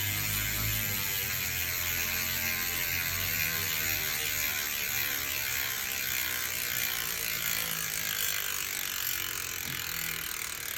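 Industry Nine Hydra rear hub freewheeling: a continuous high buzz from its pawls ratcheting as the wheel coasts, slowly dropping in pitch and easing off near the end.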